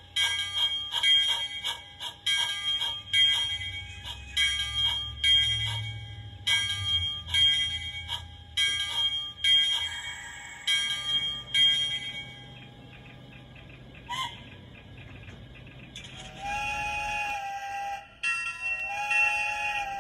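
A model steam locomotive's sound system rings its bell about twice a second over a low running rumble as the train pulls into the station. The bell stops about two-thirds of the way through, and the steam whistle then sounds two blasts near the end.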